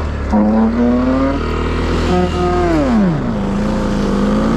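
Honda ADV150 scooter's single-cylinder engine revving hard under load as it is driven up a steep dirt bank with a push from behind. The pitch climbs a little past two seconds in, drops around three seconds, then rises again near the end.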